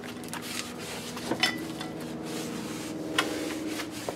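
A cloth rag rubbing and wiping a new rear brake drum clean of brake cleaner and oily residue, with two light metallic knocks as the drum is handled.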